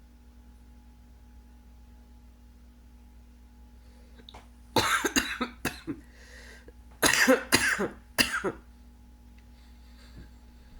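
A person coughing in two fits of about four coughs each, a second or so apart, with a breath drawn between them.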